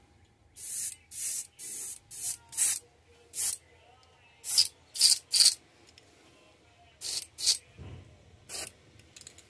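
Airbrush hissing in short, sharp bursts, about a dozen quick triggers of air and paint.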